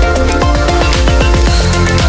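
Loud electronic background music with a steady beat and a rapid run of falling bass sweeps.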